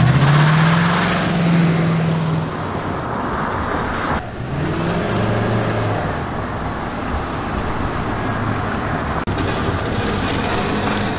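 1990s Ford F-150 pickup's engine and exhaust accelerating, the note rising in pitch and holding for a couple of seconds. About four seconds in it drops back and climbs again, then runs on steadily.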